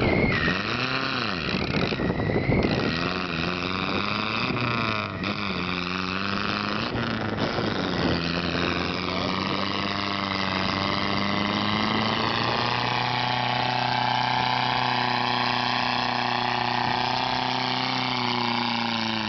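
Mud-bogging 4x4 pickup truck's engine revving up and down as the truck works through the mud hole, then settling into a steady, even drone for the last several seconds.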